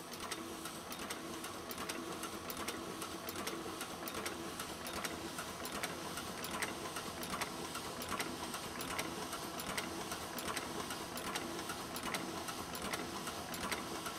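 Offset printing press running steadily: a rhythmic mechanical clatter of about three clicks a second over a steady hum.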